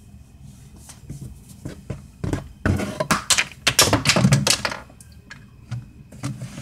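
Plastic containers and objects being handled and knocked about on a shelf close to the microphone. A quick run of knocks, taps and clatter starts about two seconds in and lasts about three seconds, with a few scattered taps after.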